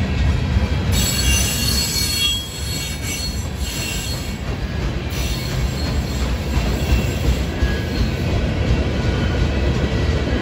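Freight train rolling past at close range, its lumber-loaded centerbeam flatcars and covered hoppers giving a steady low rumble of wheels on rails. High-pitched wheel squeal rings over it from about one to five seconds in.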